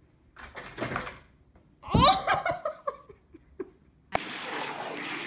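A person laughing: a short breathy laugh about half a second in, then a louder laugh about two seconds in, followed by a few light clicks. Just past four seconds it cuts suddenly to a steady hiss.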